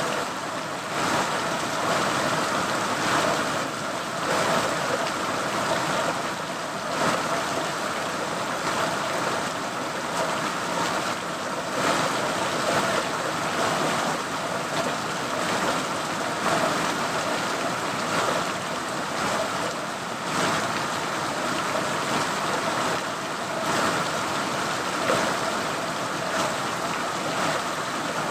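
Rain falling steadily, an even, dense hiss.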